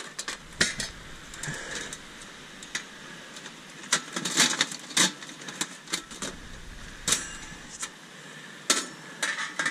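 Uniflame metal smoker being handled and set up: an irregular run of light metal clicks, clanks and rattles, with several louder knocks in the middle and near the end.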